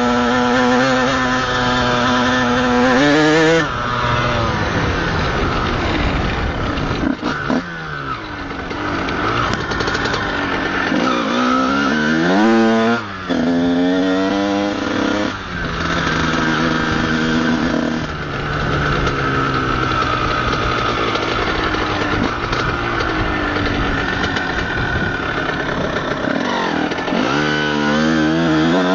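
Honda CR125's single-cylinder two-stroke engine heard from the rider's helmet, revving up and dropping back several times with gear changes and throttle, held to gentle riding because its clutch is burnt.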